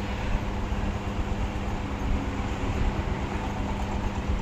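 Steady mechanical hum with a constant low drone.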